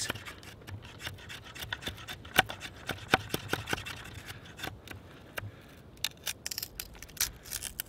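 Adventure Sworn bushcraft knife blade shaving thin curls off a dry, seasoned stick: an irregular series of short scraping strokes as the edge skims along the wood.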